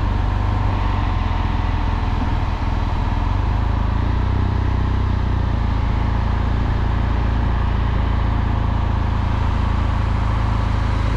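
BMW R1200GS Adventure's flat-twin boxer engine running steadily, a constant low hum with no revving or gear changes.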